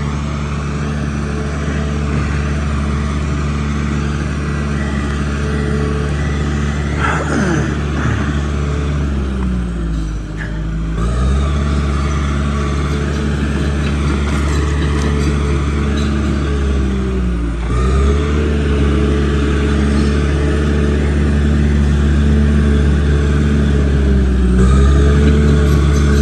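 Bulldozer's diesel engine running steadily, its pitch sagging briefly three times as it comes under load and then picking back up.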